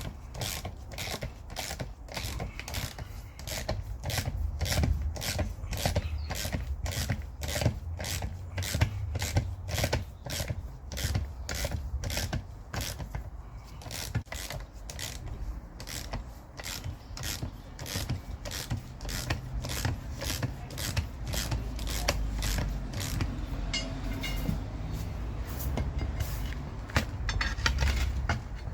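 Mechanical tyre bead breaker being tightened with a hand wrench on its bolt, giving a steady run of sharp clicks about two a second over a low rumble, as the breaker is forced down on the tyre bead of a tractor front wheel.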